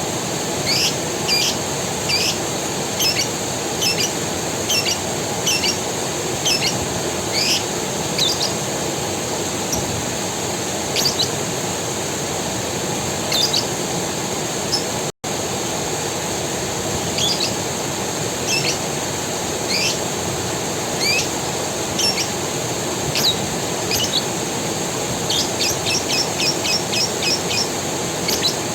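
A small bird repeating short, quick descending chirps over the steady rush of a forest creek and a constant high insect hum. Near the end the chirps come faster, about four a second. All sound cuts out for an instant about halfway through.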